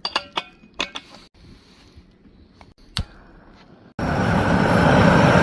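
A few sharp metallic clinks and knocks, then a loud steady rushing noise that starts suddenly about four seconds in.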